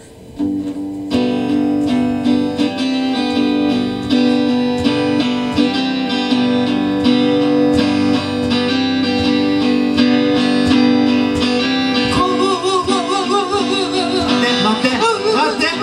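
Live rock band playing: guitar-led music with sustained chords that comes in fully about a second in, and from about twelve seconds a high line sung or played with a heavy, wavering vibrato.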